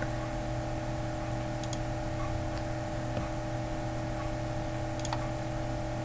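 Steady electrical hum and hiss of the recording setup, with two short computer-mouse clicks, one a little under two seconds in and one about five seconds in.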